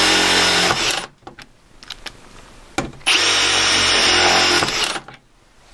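Milwaukee M18 FUEL Surge hydraulic oil impulse driver driving screws in two runs: a short one at the start and a longer one of about two seconds beginning about three seconds in, with a few light clicks between them.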